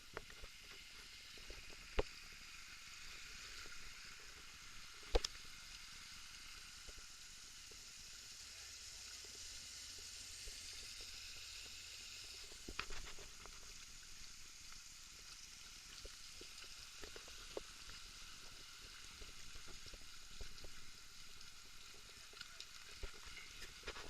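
Faint steady rush of river water, with a few sharp knocks, two of them louder, about two and five seconds in.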